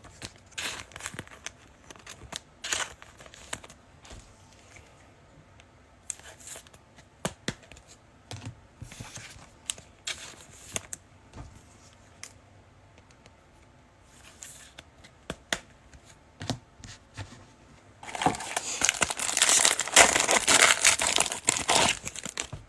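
Scattered light clicks and rustles of trading cards being handled. Near the end, a foil card-pack wrapper crinkles and tears open, louder, for several seconds.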